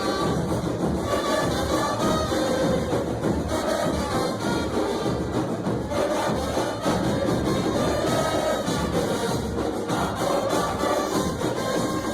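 Brass-band music playing continuously, with a mass of voices singing a tune over it.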